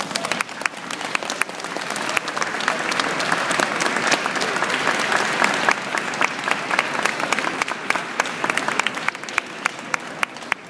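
Crowd applauding at the end of a performance. The clapping swells to a dense peak in the middle and thins to scattered single claps near the end.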